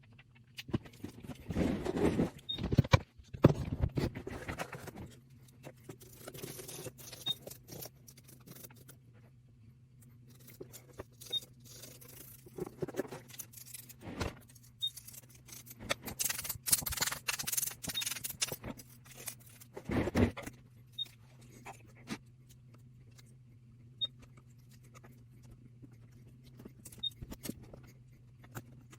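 Irregular scraping, clicking and rattling of hard parts being handled, louder in a few bursts, over a steady low hum.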